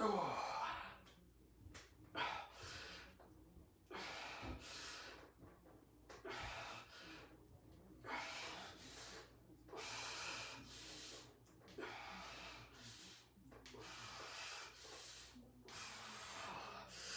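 A man's heavy breathing, a sharp breath out or in with each repetition of an incline dumbbell press, about every one to two seconds.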